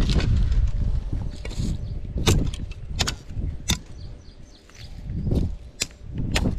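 Dry wooden sticks being cut and pointed with a blade: sharp cracks about a second apart, irregular, over a low wind rumble on the microphone.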